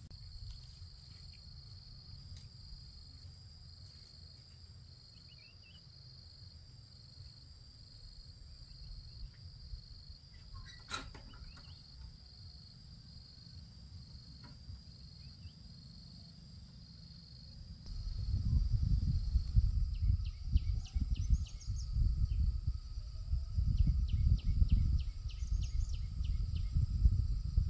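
An insect trilling steadily on one high pitch in rapid pulses. About two-thirds of the way through, a loud low rumble sets in, with runs of quick high chirps over it.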